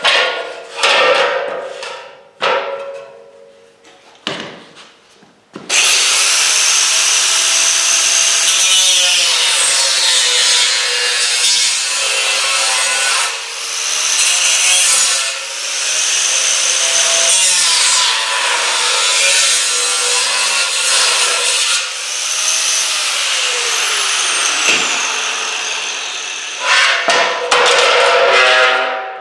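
A power tool cutting through the aluminum ladder's extruded rails and rungs for about twenty seconds, its motor pitch dipping and recovering as it loads up in the cut. Before it starts there are a few metallic knocks, and more clattering near the end.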